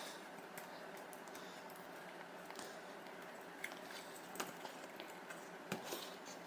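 Quiet room tone with a few faint, short clicks and taps in the second half, as of small parts being handled on a workbench.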